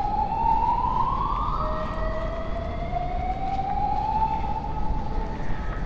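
Siren wailing in slow sweeps: one rising and dropping away, then another climbing slowly and fading, over a steady low rumble.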